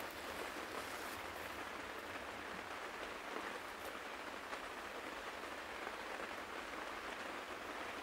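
Steady rain falling, with a few faint drop ticks.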